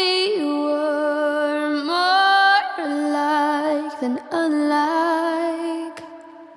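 Background song: a woman's voice singing long held notes of an English-language song, fading out near the end.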